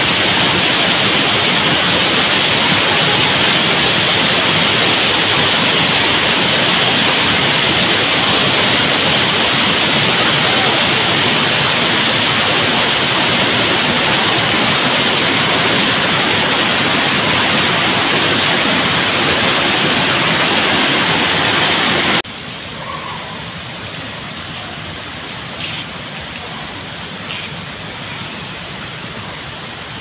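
Steady rush of a waterfall plunging into a gorge pool, with water streaming down the mossy cliff walls close by. Around two-thirds of the way through the rush cuts off abruptly to a much quieter steady background hiss.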